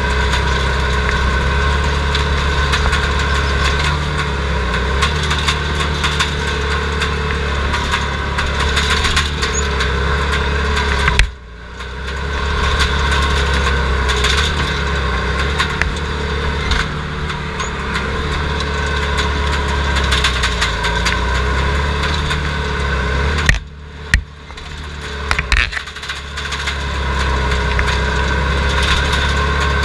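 Skid steer loader engine running steadily, heard from inside the caged cab. Twice, about 11 and 24 seconds in, a sharp knock comes and the engine sound drops suddenly, then climbs back over a second or two.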